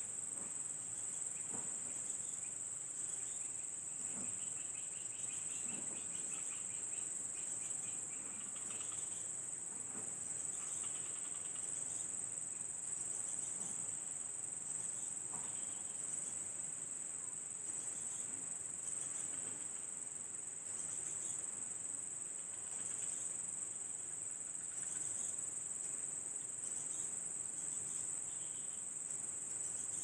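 Steady, high-pitched drone of insects, crickets or similar, unbroken and unchanging in level.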